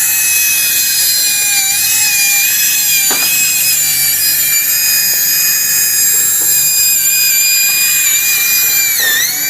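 High-speed power drill whining steadily while drilling out a broken exhaust manifold bolt. There is a single click about three seconds in, and the pitch dips briefly near the end.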